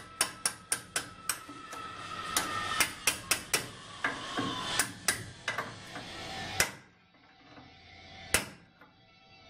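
Hammer tapping a steel punch to drive a snap ring into its groove beside a scooter drive shaft bearing: a quick run of sharp metal taps for about six and a half seconds, then one more tap near the end.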